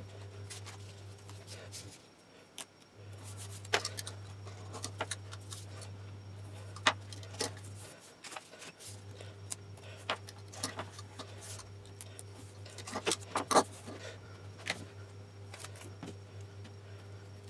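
Handling sounds at a workbench: scattered clicks, taps and rustles as tape and paper strips are pressed onto a walnut board and the board is moved, the loudest few taps about a third and three-quarters of the way in, over a faint steady low hum.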